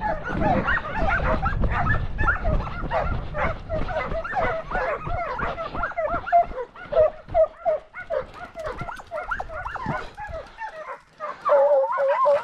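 Hunting hounds baying on a chase, a continuous run of quick yelping calls several times a second, with a louder flurry near the end. A low rumble runs underneath and stops about ten seconds in.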